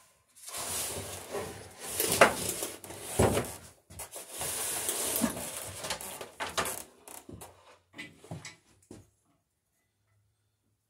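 Tools being rummaged through and handled: irregular rattling and scraping with sharp knocks about two and three seconds in, stopping about nine seconds in.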